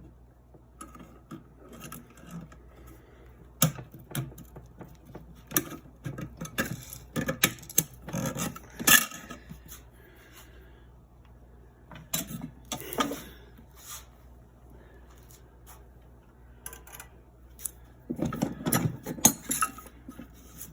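Irregular small clicks, taps and scrapes of hand tools and metal parts as the rear sight and mainspring retainer clip are worked off a Daisy 105 Buck BB gun during disassembly. The sharpest click comes about nine seconds in, with a stretch of denser scraping and handling near the end.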